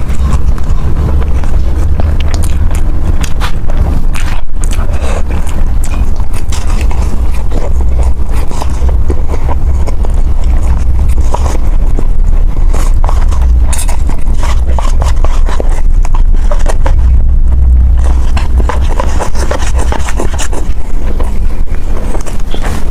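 Close-miked eating sounds: a dense, irregular run of wet clicks and crackles from chewing, over a steady low rumble.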